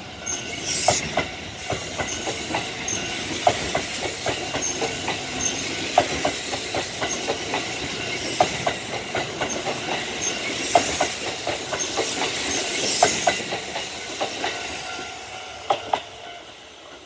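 Kintetsu Kyoto Line train running past a level crossing, its wheels clacking over the rail joints in a long run of irregular knocks. The sound dies away over the last couple of seconds.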